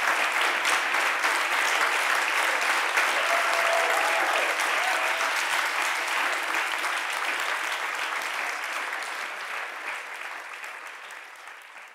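Large seated audience applauding, a dense steady clapping that fades away over the last few seconds.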